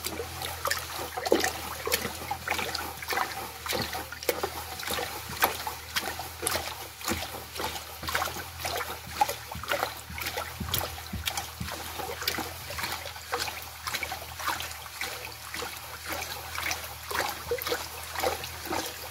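A bare hand stirring water in a plastic bucket to dissolve fertilizer, with steady, irregular sloshing and splashing, several splashes a second.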